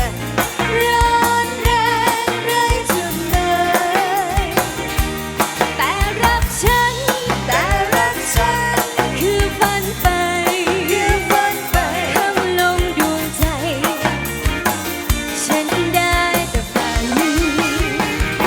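Live band music with a steady drum-kit beat and a wavering lead melody over it.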